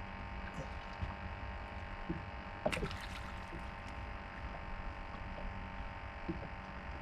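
Steady hum of several held tones over a low rumble, with one short knock a little under three seconds in.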